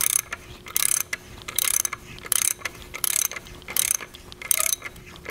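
Hand ratchet clicking on each back-swing while it turns a thread tap down into a head-bolt hole in a Cadillac Northstar V8's aluminium block. A regular run of clicks about every three-quarters of a second, as the tap is run a second time to cut the threads clean to the bottom of the hole.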